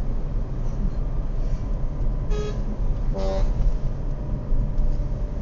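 Two short car-horn honks about a second apart, a little past two seconds in. Underneath is the steady running of the Daihatsu Rocky 1.0 Turbo's engine and road noise, picked up by a microphone in the engine bay.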